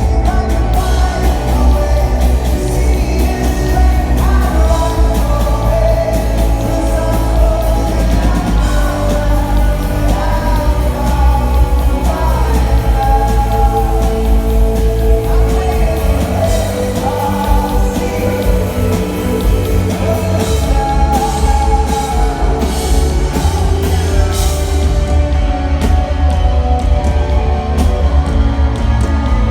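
A rock band playing live, with a male lead singer over drums and heavy bass.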